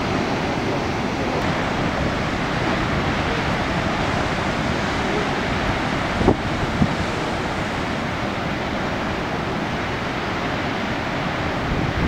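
Steady noise of large ocean waves breaking, with wind buffeting the microphone. Two brief knocks come a little past halfway.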